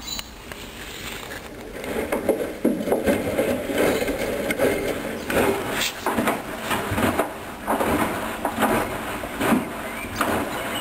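Hoover Dynamic Wash 10+ washing machine drum turning with the wash load, laundry and water tumbling in irregular thumps and swishes that get louder about two seconds in.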